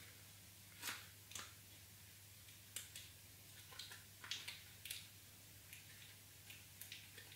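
Faint, scattered rustles and light clicks of a thin cardboard strip and sticky tape being handled and pressed onto a cardboard frame, over a low steady hum.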